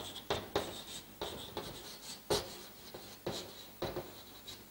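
Chalk writing on a blackboard: a string of short, uneven taps and scratches as the letters are stroked out, about eight in all.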